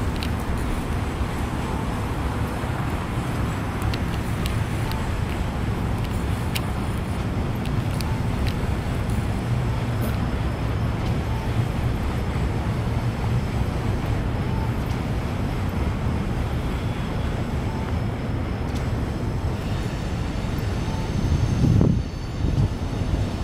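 Steady low rumble of city road traffic. A louder low rumble swells near the end.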